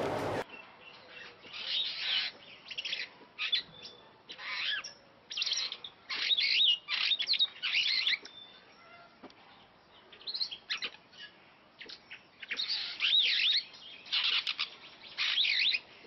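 An African glossy starling singing: bursts of chirps, whistles and quick rising-and-falling warbled notes, about one burst a second, with short pauses between phrases.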